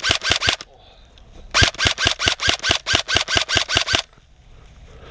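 Airsoft electric gun (AEG) firing in rapid full-auto bursts, about seven shots a second: a short burst ending about half a second in, then a longer burst of some two and a half seconds.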